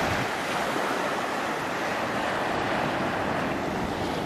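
Ocean surf washing up a sandy beach, a steady rushing wash of small breaking waves, with wind buffeting the microphone.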